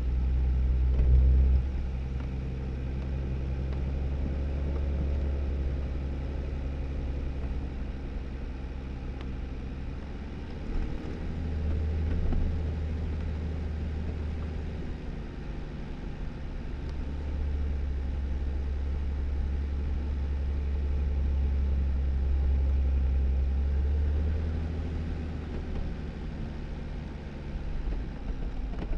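2018 Jeep Wrangler driving slowly, its engine running as a low drone that swells and eases with the throttle, over a steady hiss of tyre and road noise.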